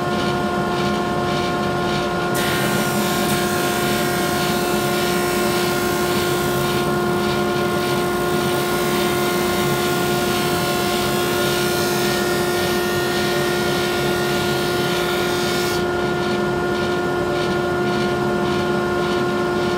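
Grizzly G0458Z 18-inch open-end drum sander running with a steady hum while a board rides through on the conveyor. A hissing grind of the 80-grit drum on the wood starts about two seconds in and stops about four seconds before the end, as the board passes under the drum.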